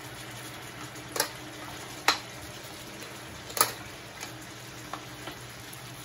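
Tanigue (Spanish mackerel) steaks frying in butter over medium heat: a steady sizzle broken by sharp spattering pops, three loud ones in the first four seconds and a few smaller ones after.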